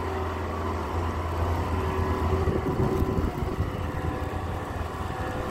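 Motor vehicle engine running with a steady low hum, a little louder in the middle.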